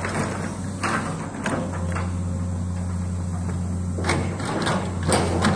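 Komatsu amphibious excavator at work: its diesel engine runs steadily, under sharp metallic clanks and creaks from the boom and bucket linkage. The clanks come a few times in the first two seconds and most loudly in the last second and a half.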